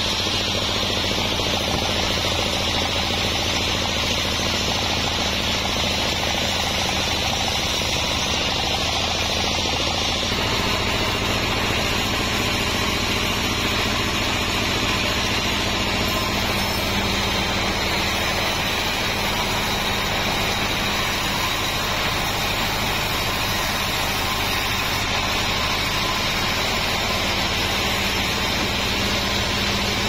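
Vertical band sawmill running steadily as its blade rips lengthwise through a large wadang log: a constant machine drone with a steady low hum, which shifts slightly in tone about ten seconds in.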